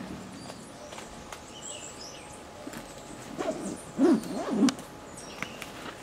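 A bird's low hooting calls, about three notes in quick succession starting around the middle, over a few faint high chirps from small birds.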